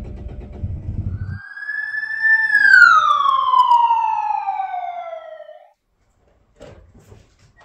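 A falling whistle sound effect, the cartoon 'bomb dropping' whistle: one long tone that rises slightly, then slides steadily down in pitch for about three seconds and stops. It is preceded by a low rumble that cuts off abruptly about a second and a half in.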